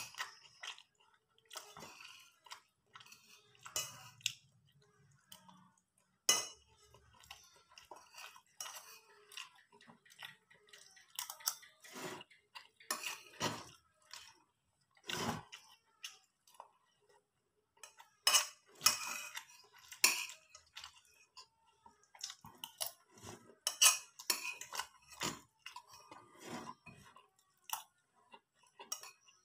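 Metal spoon clinking and scraping against a plate as rice and vegetables are scooped up, with chewing in between. Scattered short clicks and scrapes throughout, some louder around the middle and later on.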